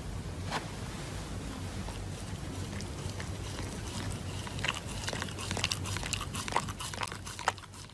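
Shiba Inu biting and chewing a paper face mask: soft crinkling and crunching that comes more often in the second half, over a low steady hum.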